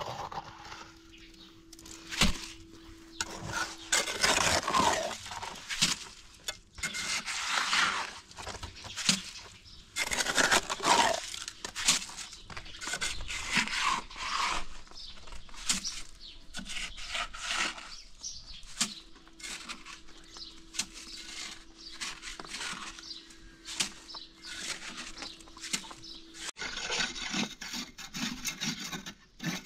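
Irregular rough scraping and rubbing strokes with scattered sharp knocks, under a faint steady hum that comes and goes.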